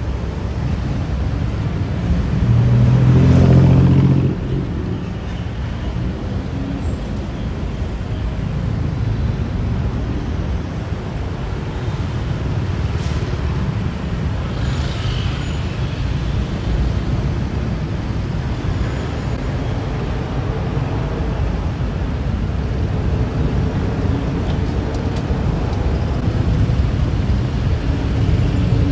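Steady rumble of busy city road traffic, with one louder engine passing about three seconds in.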